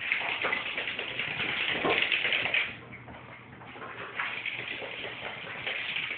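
A puppy's and a cat's paws and claws scrabbling and skittering on a hardwood floor and furniture as they chase, in two spells: the first stops about two and a half seconds in, the second starts a little past the four-second mark.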